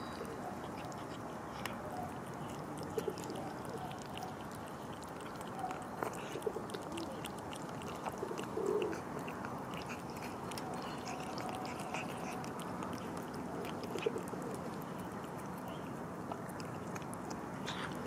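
Two cats chewing and crunching food from a plastic tub: small, irregular crunching clicks over a steady background noise.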